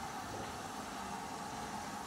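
Steam locomotive standing and simmering, giving off a steady hiss of steam.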